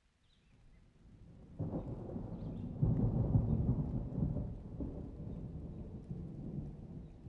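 A low rumbling noise that swells about a second and a half in, is loudest around the third second, then slowly dies away.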